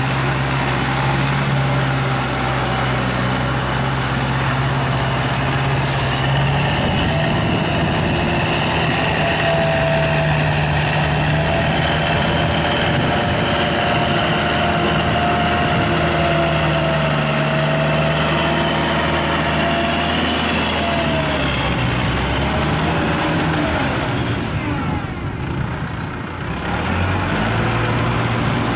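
Kubota tractor's diesel engine running steadily while driving a rear rotary tiller through wet paddy mud. The engine note shifts about a quarter of the way in, and the sound dips briefly near the end.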